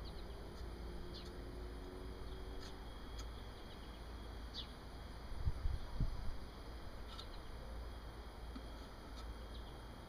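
Quiet outdoor background: a steady low rumble with scattered brief high chirps and a couple of soft low bumps about halfway through.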